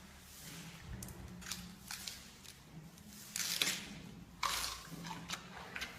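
Giant panda chewing bamboo: irregular crunches and crackles, with two louder crunching bursts about halfway through.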